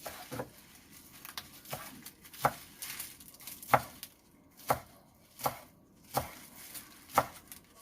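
Knife chopping kale leaves, about ten separate cuts at a slow, uneven pace.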